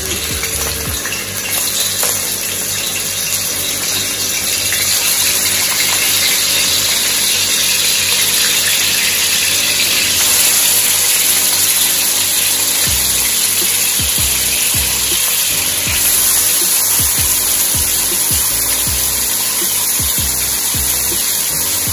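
Kitchen tap running steadily into a sink, with background music playing underneath.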